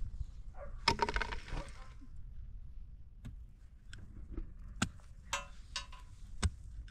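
A brief clatter about a second in, then several sharp, irregularly spaced clicks and clinks of small hard objects being handled.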